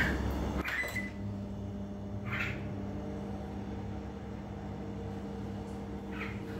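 Microwave oven being set and started: button beeps and a click just before a second in, then the steady hum of the oven running on a three-minute cook.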